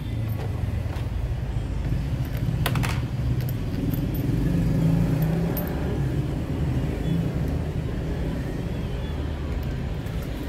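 A car engine idling steadily, with a few sharp clicks about three seconds in.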